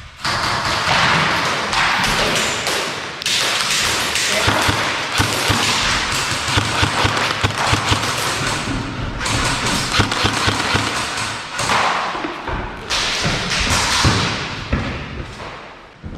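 Rapid low thuds under loud rustling noise right at a head-mounted camera's microphone, coming in long stretches with short breaks.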